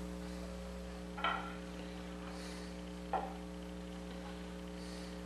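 Two light clicks of steel on steel as a gauge block stack and a sine bar are set in place, one about a second in and one about three seconds in, over a steady mains hum.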